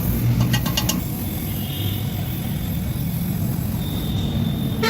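Steady low machine rumble with a quick run of about five light clicks about half a second in, and a faint high whine twice later on.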